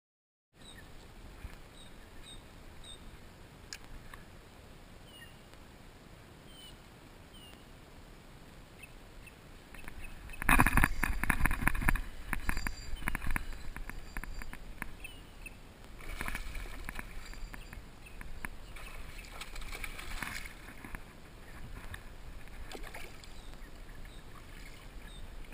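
Sounds of a kayak on the water: low water noise and small knocks against the hull, with faint bird chirps. About ten seconds in comes a loud clattering of knocks and splashes lasting a second or two, and shorter clusters follow twice more.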